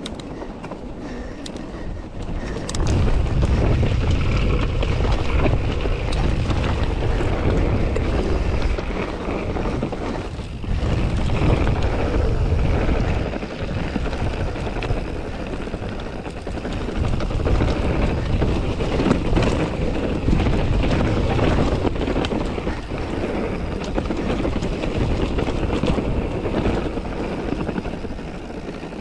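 Wind buffeting the camera microphone while a 2016 YT Capra AL 1 full-suspension mountain bike runs fast down a trail, its tyres and frame rattling over the ground. The rumble swells about two and a half seconds in and eases off near the end.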